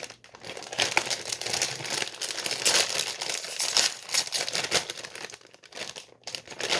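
Plastic wrapper of a Bourbon Alfort green tea biscuit pack being torn open and crinkled by hand. The crackling is busiest for the first five seconds and quieter after that.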